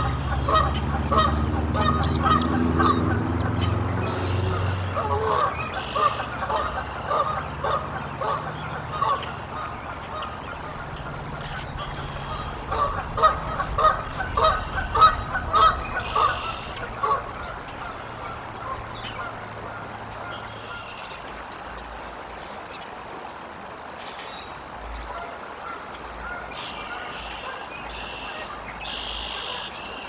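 Geese honking over and over in the background, a quick series of short calls that thins out and fades after about 17 seconds. Small birds chirp now and then, and a low rumble fills the first few seconds.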